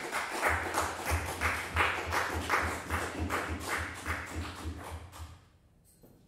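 A few people clapping in a small hall, about three claps a second for roughly five seconds, then stopping.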